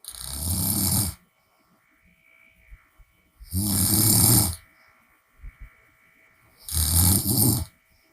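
A woman snoring with her mouth open: three loud snores, each about a second long and about three seconds apart, with near silence between.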